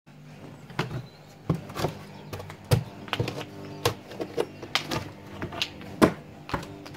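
About a dozen irregular sharp knocks and clatters as stiff cardboard desk panels are kicked, lifted and knocked about, and small parts drop onto stone paving slabs.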